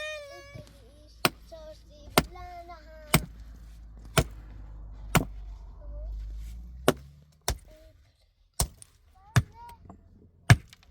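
Sharp blows of a tool striking wood, about ten strikes roughly a second apart, as in chopping or hammering timber.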